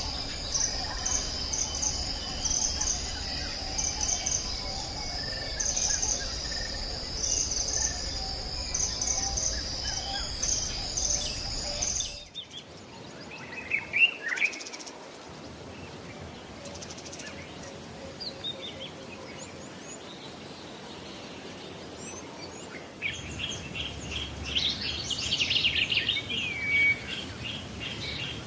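Forest ambience: a steady high-pitched insect buzz for the first twelve seconds or so, cutting off abruptly. After it come scattered bird chirps and calls, then a rapid repeated trill over the last few seconds.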